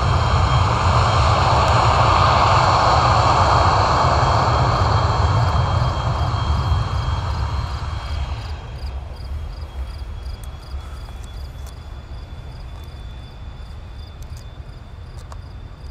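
MiG-17 jet fighter's turbojet engine running at taxi power, loud for the first six seconds, then fading over the next few as the jet turns away to line up on the runway. A steady high whine runs under it.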